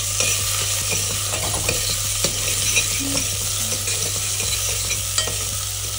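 Chopped onions sizzling with cumin seeds in a hot pressure cooker, stirred with a metal spoon that clinks against the pot a few times.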